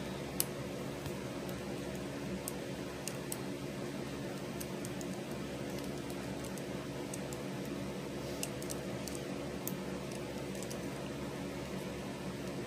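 Faint scattered clicks of a plastic hook and rubber bands working on a small clear plastic loom, over a steady low hum.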